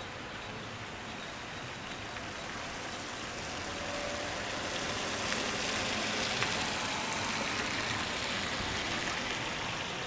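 Steady rain falling on a street, an even hiss that swells louder over the middle few seconds and then eases back.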